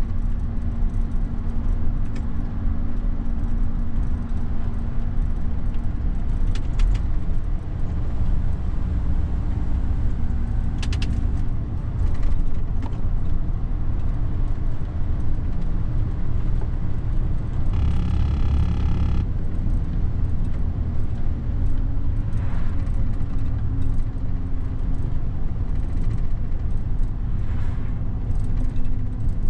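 Mercedes-Benz Actros truck driving, heard inside the cab: a steady diesel engine drone with tyre and road noise, and a few sharp rattles and clicks from the cab. About 18 seconds in, a separate higher sound lasts just over a second.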